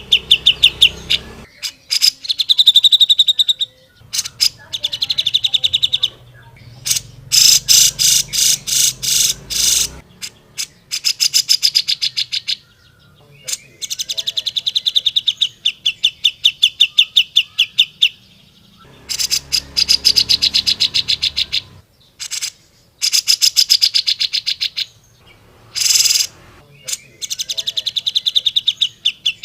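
Grey-cheeked bulbul (cucak jenggot) singing in rapid trills of fast-repeated high notes. The phrases each last a few seconds, with short pauses between them.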